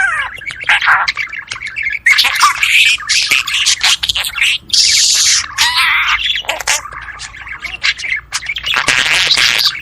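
Budgerigars chattering and warbling, with rapid clicks and harsh squawks.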